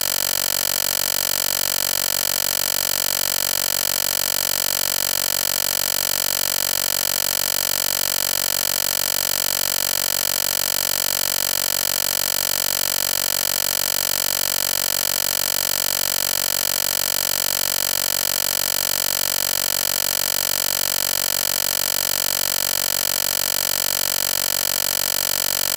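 A steady, unchanging electronic hum and hiss, made of many fixed tones over a wide spread of pitches. It has no beat and no change in level throughout.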